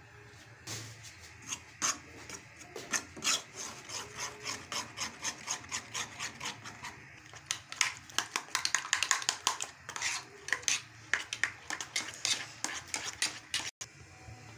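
Steel spoon stirring and scraping against an aluminium pan, mixing flour into an egg-and-milk batter: rapid repeated scrapes and clinks, several a second, stopping shortly before the end.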